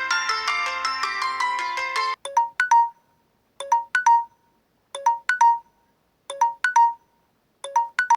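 Samsung Galaxy J1 Ace ringtones playing. A busy tune of quick notes ends about two seconds in. The next ringtone begins: a sparse three-note chime, repeated five times about every 1.3 seconds with silence between.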